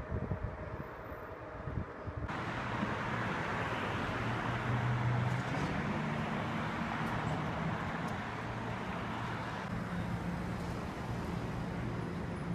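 Street traffic noise with a bus engine running as a city transit bus pulls in along the curb, after a low steady hum in the first couple of seconds.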